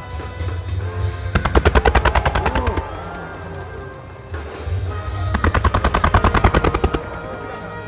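Rapid-fire salvos of aerial fireworks bursting in quick succession from a starmine, in two runs of bangs about a second and a half each, over music played on the display's loudspeakers.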